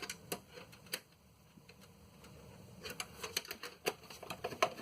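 Scattered light clicks and taps from hands handling parts inside a desktop computer case. A few come in the first second, then a quiet stretch, then a denser run of clicks from about three seconds in.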